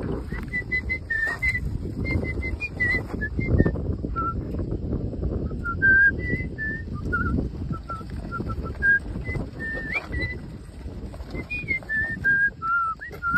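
A person whistling a slow tune of short held notes that step up and down, over a low rumble of wind noise.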